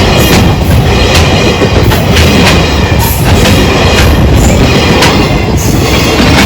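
Freight train wagons rolling past at close range, with a steady low rumble and wheel clacks over rail joints every half second or so.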